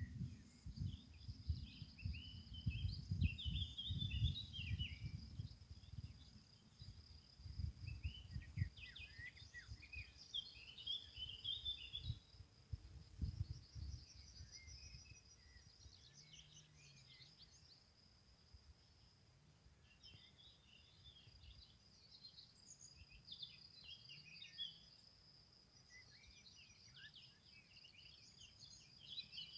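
Songbirds singing in short phrases every few seconds over a steady high insect trill. Wind gusts buffet the microphone during the first half, then ease off.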